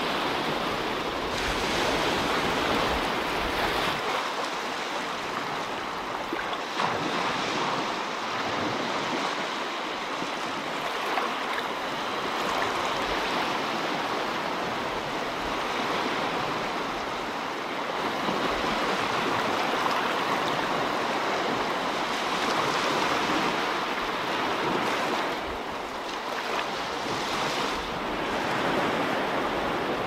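Small surf washing onto a sandy beach, a steady hiss of water that swells and eases gently. Wind rumbles on the microphone in the first few seconds and again near the end.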